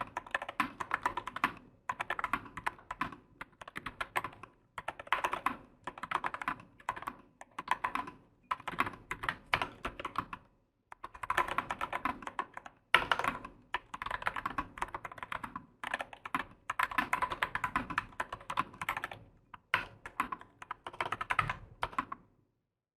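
Typing on a Nuphy Air 75 low-profile mechanical keyboard with tactile brown switches: quick runs of key strokes in bursts of a second or two, broken by short pauses, stopping just before the end.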